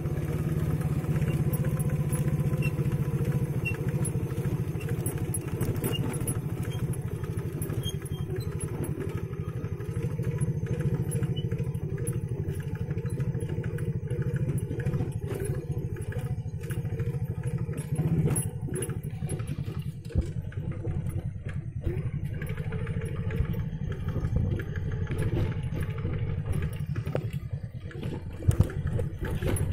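Motorcycle engine running while riding a rough dirt trail, with scattered knocks and rattles from the bumpy ground, a few sharp ones near the end.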